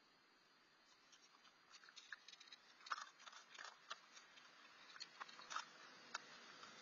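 Raccoon eating turtle food from a dish: faint, irregular crunching clicks that begin about a second in and come more often after that.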